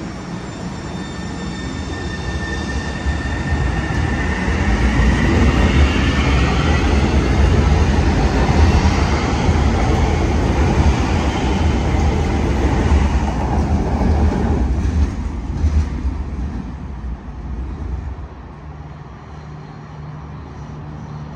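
Sound Transit Link light rail train moving past close by. It starts with a steady rumble and a thin electric whine, the whine rises in pitch as the train gathers speed, and the sound grows louder through the middle before falling away about 15 seconds in.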